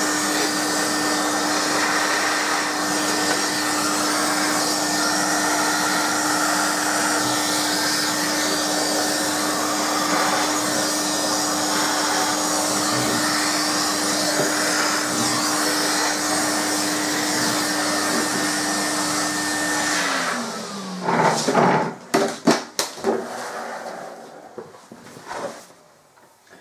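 Vacuum cleaner running steadily, its plastic nozzle sucking dust from inside a desktop PC case. It is switched off about twenty seconds in and its motor whine drops away, followed by a few knocks and clatters of handling.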